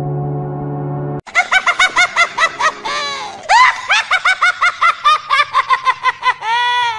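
A steady low droning tone cuts off about a second in. A man's rapid, high-pitched laughter follows, several cackles a second rising and falling in pitch: the Joker's laugh.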